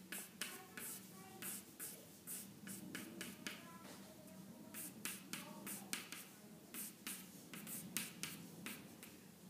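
Pencil scratching on a sign board in short, quick strokes, a few a second, as the lettering layout is marked out in guide lines.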